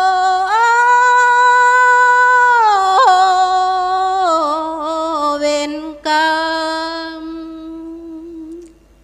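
A woman sings solo and unaccompanied into a microphone in the drawn-out melodic style of a Thai Buddhist sorapan (sarabhanya) chant. She holds long notes: the pitch rises about half a second in, steps down about four seconds in, and a long low note fades near the end.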